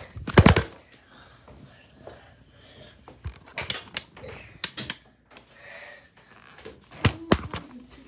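A few irregular sharp knocks and clatters, the loudest cluster about half a second in, more around the middle, and two close together near the end.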